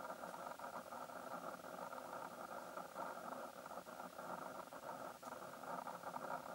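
A steady, even background drone with a few faint ticks, and no bird call.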